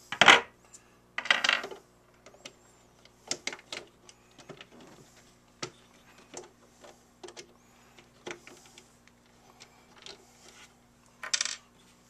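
Small metal clinks and rattles of screws and driver bits being handled while security screws are taken out of a space heater's plastic housing. There are louder rattles right at the start, about a second in and near the end, and light scattered clicks between them.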